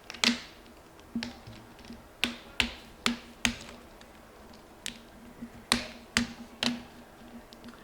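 Plastic clips of a Samsung Chromebook's screen bezel snapping loose as the cover is pried off the lid: a series of sharp plastic clicks, about a dozen at irregular intervals.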